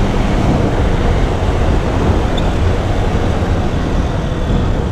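Honda CG Titan 160 motorcycle's single-cylinder engine running steadily as the bike rides along, under a continuous rush of road and wind noise.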